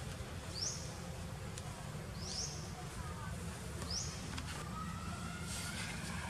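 A bird repeating a short, high, rising chirp three times, a couple of seconds apart, over a steady low outdoor rumble.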